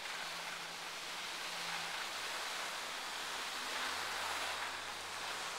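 Steady rushing hiss of skiing downhill: skis sliding over packed snow, with air moving past the microphone.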